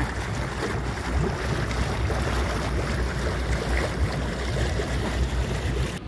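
Steady rush of wind and sea water around a small boat out on the water, with a low rumble underneath.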